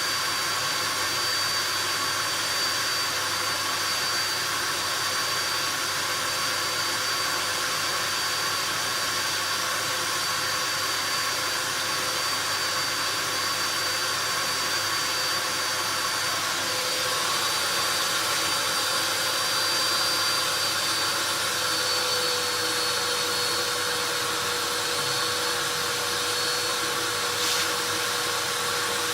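Amstrad VC3025 bagless cyclonic cylinder vacuum cleaner's 1600-watt motor running steadily: a rush of air with a high whine, which shifts slightly in pitch a couple of times past the middle. One brief tap near the end.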